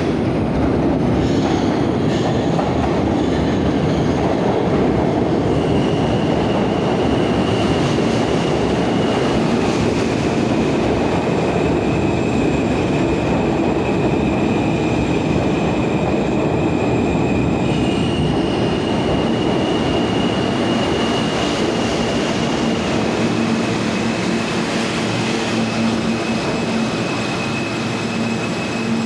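R160A New York City subway train running along the station platform, with a steady rumble of wheels on rail. Over it sits a thin high whine that holds and steps between two close pitches every few seconds.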